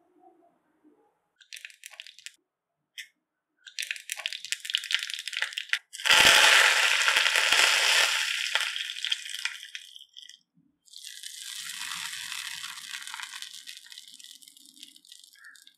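Mustard seeds popping and crackling in hot oil in a pan, in scattered bursts. About six seconds in, curry leaves go into the oil with a sudden loud sizzle that fades over a few seconds; after a short break a softer, steady sizzle follows.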